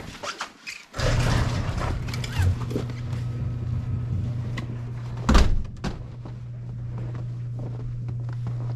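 ATV engine starting about a second in after a few knocks, then idling with a steady low hum; one loud thump about five seconds in.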